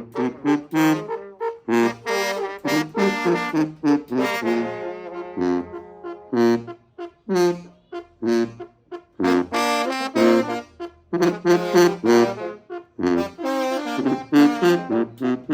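A children's brass band playing a lively regional son from the Mixteca, with trombones and trumpets in short, accented chords over a steady rhythm.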